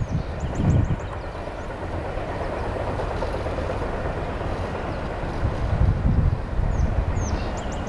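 Intermodal freight train's container-laden well cars rolling past on the rails, a steady low rolling noise with a couple of louder low surges, as the last cars go by.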